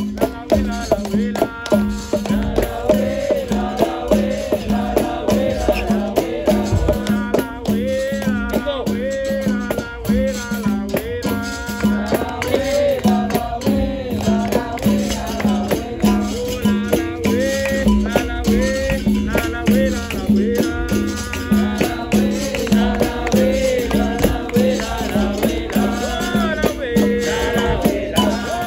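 Capoeira roda music: a berimbau twanging a repeated rhythm with its caxixi rattle, percussion strikes, and sung voices over it.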